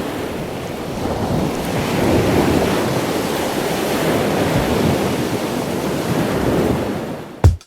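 Steady rush of waves and water with wind buffeting the microphone. Near the end it drops away and a sharp drum hit of music cuts in.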